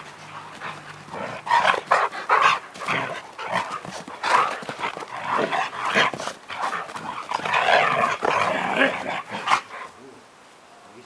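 Two Siberian huskies play-fighting, giving a rapid string of short, irregular yips and grumbles that dies down about ten seconds in.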